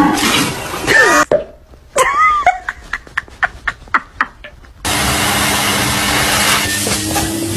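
A run of short, quick clicks, then from about five seconds in a vacuum cleaner starts and runs steadily with a low hum as its hose is held near a cat.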